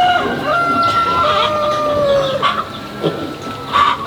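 A rooster crowing one long drawn-out crow that sags slightly in pitch, followed by a few short clucks.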